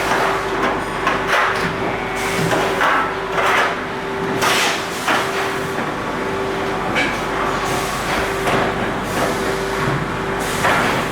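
Edge-trimming machine running: a steady hum under irregular clanks and short hissing bursts, about a dozen over eleven seconds.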